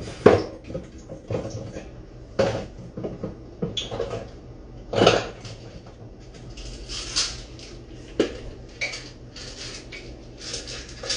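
Kitchen clatter of dishes, pots and utensils being handled, with sharp knocks at irregular intervals and denser rattling in the second half.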